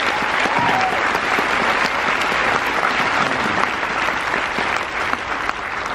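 Large audience applauding steadily after a panel answer, the clapping holding an even level throughout.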